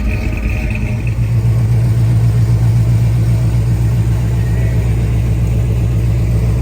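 Car engine running with a steady low drone that grows a little stronger about a second in.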